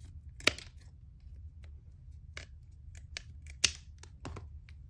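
Scissors snipping through the ends of wooden popsicle sticks to trim them flat: two sharp snips, about half a second in and again about three seconds later, with lighter clicks of the sticks being handled in between.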